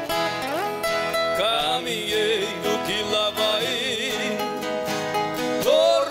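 Sertanejo song played live on nylon-string acoustic guitars, with singing that comes in about half a second in.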